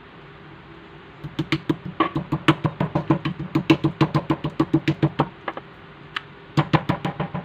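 Stainless-steel meat mallet pounding a slice of pork loin on a wooden cutting board to tenderize it: fast runs of dull, thudding knocks, several a second. The pounding starts about a second in, breaks off for about a second with one lone knock, then starts again near the end.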